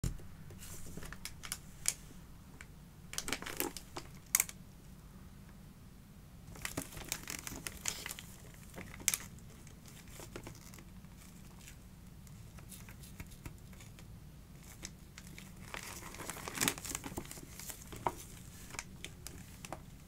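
Fragrance gift packaging being unwrapped by hand: paper or wrapping crinkling and tearing in several bursts, with small clicks and taps between pauses, over a faint steady low hum.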